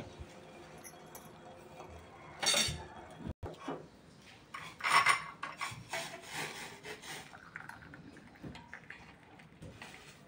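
Pot and strainer clinking and scraping as a boiled herbal kadha is strained into a cup, with two brief louder sounds about two and a half and five seconds in.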